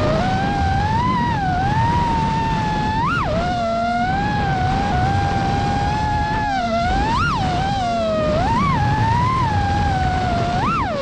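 Brushless motors (T-Motor F40 Pro IV) of an FPV quadcopter whining, heard from on board. The pitch rises and falls with throttle, with several sharp brief jumps as the throttle is punched, over a low rumble of wind and prop wash.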